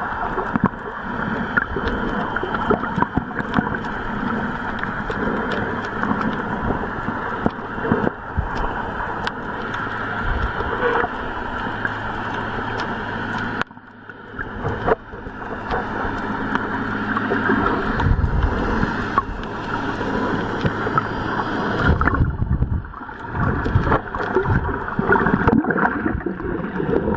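A boat on the water: churning, gurgling water noise, muffled, with a steady low engine hum under it for much of the time. The sound drops out briefly about 14 s in, and heavier low rumbles come in near the end.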